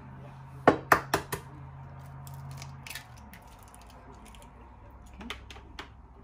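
An egg being cracked: four sharp taps of the shell in quick succession about a second in, then lighter clicks of shell being broken open. A low steady hum runs underneath and stops about three seconds in.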